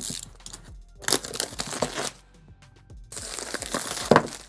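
Clear plastic packaging crinkling as a cardboard box is opened and its contents lifted out. The rustling comes in three bursts: at the start, about a second in, and again after three seconds.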